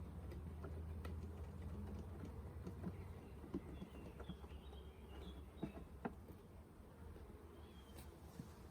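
Faint buzzing of honeybees around an open hive, with scattered small clicks and knocks from handling clamps and wood.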